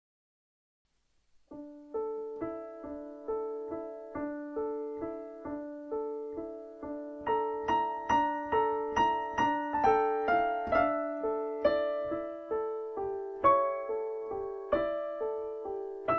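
After about a second and a half of near silence, a piano starts playing a steady run of single struck notes, about three a second, a melody over repeating lower notes, each note ringing and dying away.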